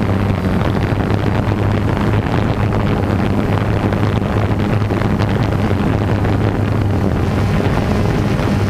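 DJI Phantom 2 quadcopter's motors and propellers running in flight, heard from the GoPro mounted on it: a loud, steady hum with wind noise on the microphone.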